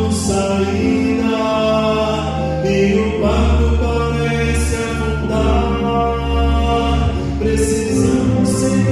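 Vocal quartet singing a hymn in harmony, holding long chords that change every couple of seconds.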